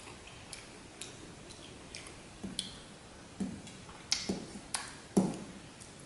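Ceramic spoon clinking and tapping against a stainless steel bowl while scooping pieces of dessert out of the liquid. The clinks are scattered and light at first, then come thicker and louder about four to five seconds in, along with duller knocks.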